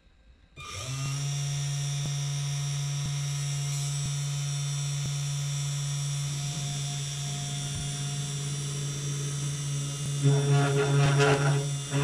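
Desktop CNC router's spindle motor starting up about half a second in and running with a steady hum and whine. About ten seconds in it gets louder and rougher.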